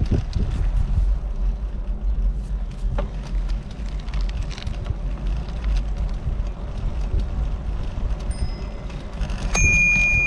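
Wind rushing over the microphone on a moving bicycle. Near the end a bicycle bell is struck once and rings on with a clear, high tone.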